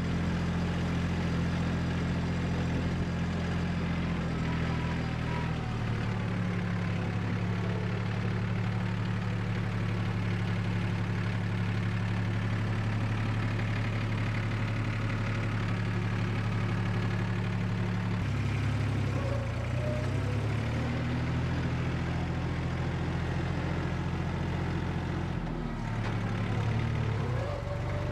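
Tractor engine running steadily while the tractor drives along, heard from the operator's cab. The engine speed shifts a few times, dipping and picking back up about two-thirds of the way through and again near the end.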